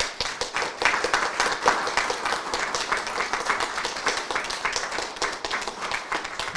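Audience applauding: many hands clapping together, starting all at once.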